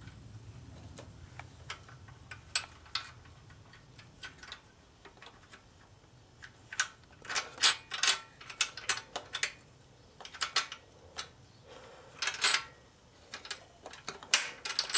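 Scattered sharp metallic clicks and clinks as the push rods of a Tecumseh 6 hp OHV engine are worked back down into place by hand. They come in quick clusters in the second half.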